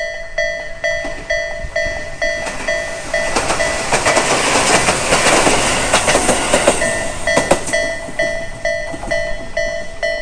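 Japanese electronic level-crossing bell of the Tobu "sound A" type, chiming about twice a second. From about two and a half to seven and a half seconds in, a train passes over the crossing, its wheels clacking over the rail joints and drowning the bell.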